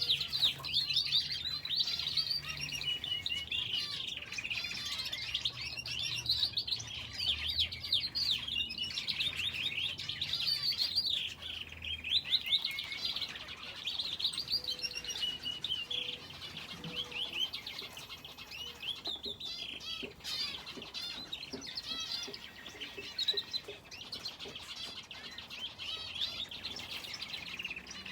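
Finches and a canary in an aviary chirping and calling together: many rapid, high, overlapping chirps and short trills from several small birds at once.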